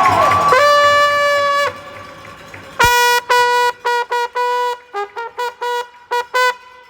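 A brass-sounding horn blown loudly: one held note, then from about three seconds in, a rhythmic run of a dozen or so short blasts all on one pitch.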